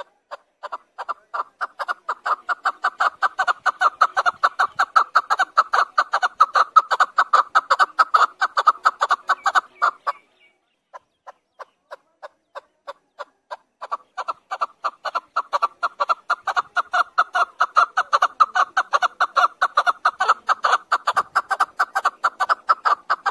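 Chukar partridge calling: a long run of short clucking chuk notes that starts slowly and speeds up into a fast, steady series, breaks off about ten seconds in, then builds up again the same way.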